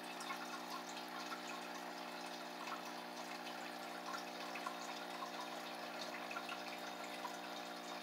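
Water trickling and dripping steadily in a small fish tub, over a steady low hum.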